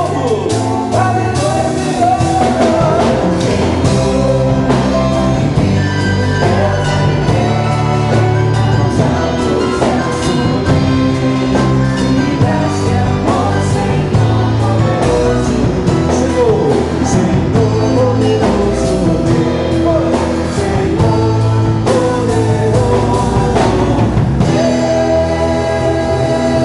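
Christian worship band playing a song with a sung lead over drum kit, bass and guitar. About two seconds before the end the singing gives way to an instrumental passage with a long held note.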